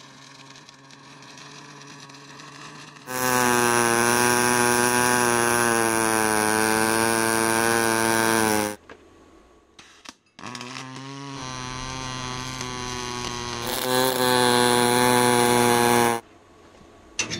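Pulsed MAG welding arc of an EWM Picomig 355 Puls in rootArc pulse mode, laying a vertical-down root pass with 1 mm steel wire that bridges a 4 mm gap between 3 mm steel plates: a steady, pitched electric buzz. After a few seconds of faint hum it runs in two stretches of about five to six seconds, with a break of under two seconds between them, and the second stretch gets louder near its end.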